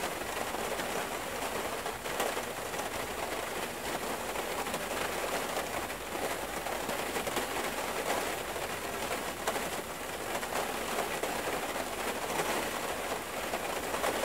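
Recorded hail falling on a roof: a steady, dense hiss of many tiny hits.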